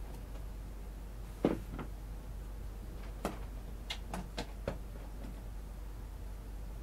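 Flash cards being handled in a card stand: a few light knocks and clicks as one card is pulled out and the next set in, over a steady low hum.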